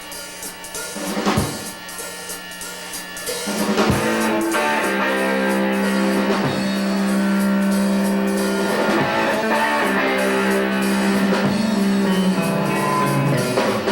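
Live rock band starting a song: a few separate drum hits, then about three and a half seconds in the full band comes in with drums, guitar and held chords for an instrumental intro.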